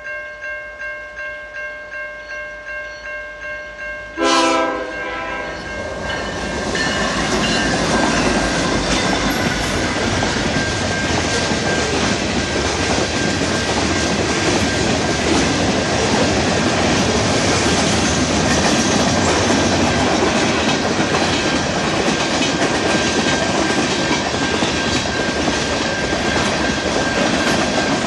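Level-crossing warning bell ringing about twice a second. About four seconds in, a CN freight train's diesel locomotive reaches the crossing with a brief horn blast. Then comes the steady noise of the freight cars' wheels rolling through the crossing, with the bell still ringing under it.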